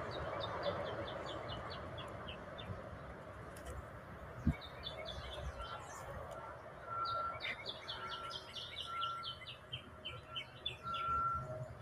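Wild songbirds calling around a backyard seed feeder: runs of short, high notes repeated quickly, with a brief higher whistled note coming and going in the later half. One dull thud about four and a half seconds in.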